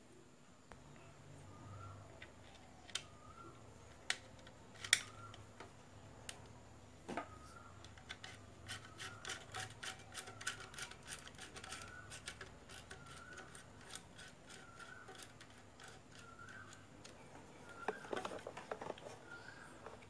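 Faint clicks, ticks and scrapes of a carbon brush being fitted into an electric blower's motor housing and its brush cap turned in with a screwdriver. A few sharper clicks come in the first five seconds, and a dense run of small ticks follows in the middle.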